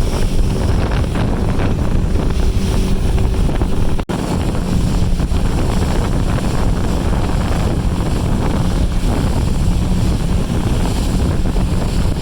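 Jet boat's engine running steadily with water rushing, wind buffeting the microphone. The sound cuts out for an instant about four seconds in.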